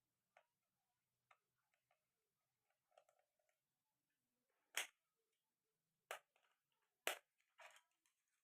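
Near silence broken by a few short clicks and knocks, three sharper ones in the second half, with faint ticks between.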